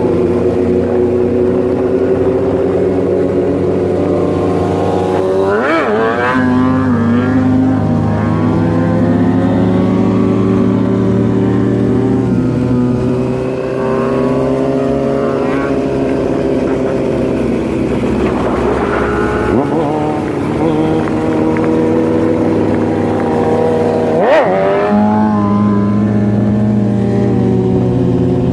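Sport motorcycle engines running steadily at road speed, with the revs sweeping sharply up and back down a few times: about six seconds in, past the middle, and a few seconds before the end.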